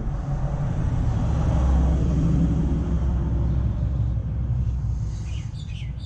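Low rumble of a passing vehicle, swelling over the first couple of seconds and then fading away; birds chirp near the end.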